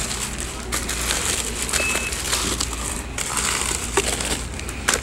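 Plastic-wrapped cracker packs and noodle packets crinkling and rustling as they are handled and set down on a counter, with many small clicks and light knocks. A short high beep sounds about two seconds in.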